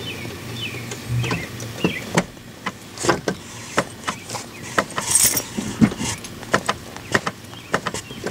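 Clutch pedal of a 1998 Saturn SL2 being pressed on its first strokes after a new clutch master and slave cylinder install: an irregular run of sharp clicks and knocks from the pedal and linkage. The first stroke is meant to snap the new slave cylinder's plastic retaining ring.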